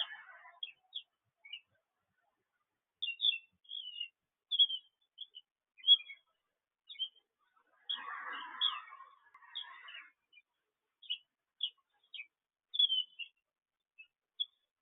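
Small birds chirping: short high notes scattered throughout, with a rougher, rustling burst lasting about two seconds a little past the middle.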